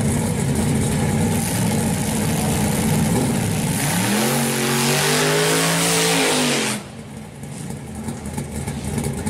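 GM G-body drag car's engine idling, then revved up about four seconds in, held high for a couple of seconds and let back down, after which it runs more quietly.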